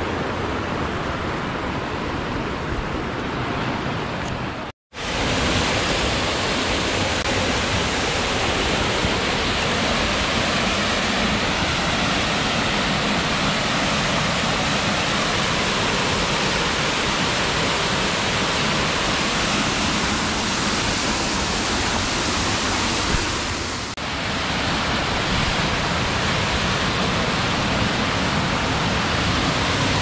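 Waterfall pouring down a rocky gully into a plunge pool: a steady, loud rush of falling water. For the first few seconds it is the rushing river beside the path. The sound cuts out for a split second about five seconds in, then the waterfall comes back slightly louder.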